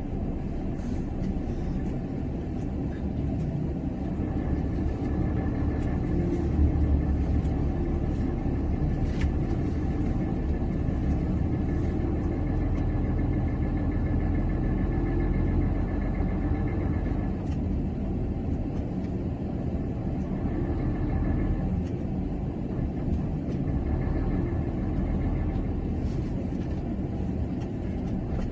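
Heavy truck engine running steadily under load, with a low rumble and a faint whine that comes and goes, as the truck is towed out of snow by a KamAZ.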